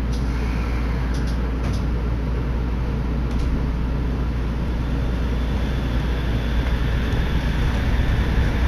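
Steady low hum inside a Shonan Monorail car, a rubber-tyred suspended monorail, as it stands at the platform; the sound grows louder near the end as the car starts to pull away.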